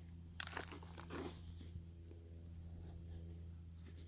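Faint rustling and scratching of hands digging through potting soil in a potato container, with a few small scrapes near the start, over a steady low hum.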